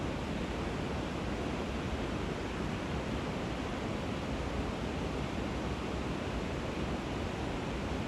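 Steady rushing of river water flowing over a weir, a constant even roar with no breaks.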